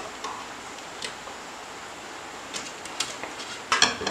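Light clicks and rattles of hands handling a computer power supply's wire bundle and metal case, a few scattered at first, then a louder cluster of sharp clicks near the end.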